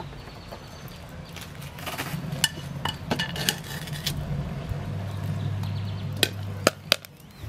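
Popcorn popping inside a covered saucepan, irregular sharp pops, mixed with the clink of the metal pot and its glass lid being handled.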